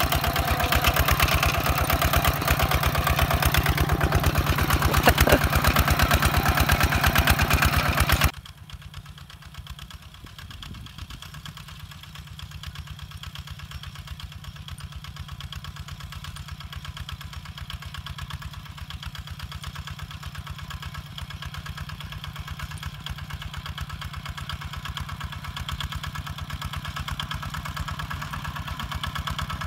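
Two-wheel walking tractor's single-cylinder diesel engine running steadily under load as it pulls a disc plough through the soil. Loud and close at first, it drops suddenly about eight seconds in to a quieter, more distant running that grows slowly louder toward the end.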